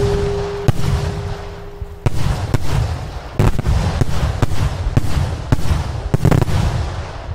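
Fireworks shells fired in rapid series from mortars at close range: about a dozen sharp, loud blasts at irregular spacing over a continuous low rumble. A steady whistle-like tone runs under the first two seconds and then stops.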